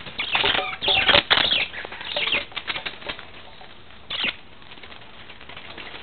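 Pet budgerigars in a wire cage making a series of short, scratchy bursts of sound, most of them in the first few seconds and one more a little past the middle.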